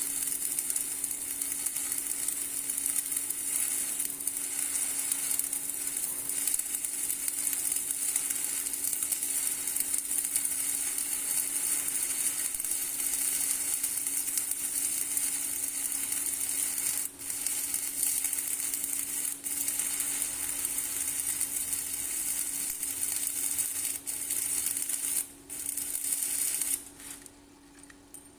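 Electric arc welding: a steady crackling sizzle with a constant hum underneath. It breaks off briefly a few times and stops shortly before the end.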